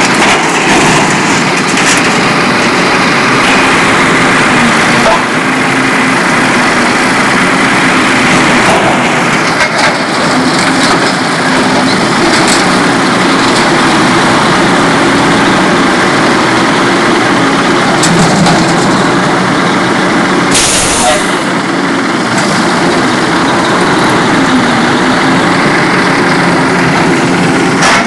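Diesel engine of a heavy scrapping machine running hard while it tears apart an old excavator, with scattered metal knocks and creaks, and one brief loud burst of noise about two-thirds of the way through.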